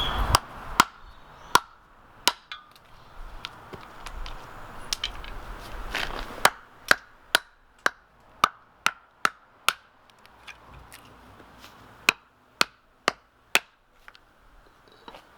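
Sharp chopping blows of a hand tool biting into a seasoned eucalyptus hardwood stump, ironbark or stringybark. There are a few spaced strikes, then a quick run of about two to three a second, a pause, and four more near the end.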